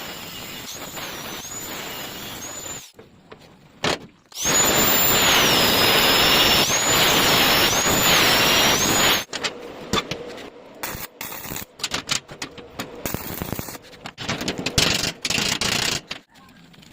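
A high-pitched power tool running with a loud whine that sags in pitch and recovers again and again, as when it is pressed into work, in two runs with a short break between; the second run is the louder. It then gives way to several seconds of irregular clicks and knocks.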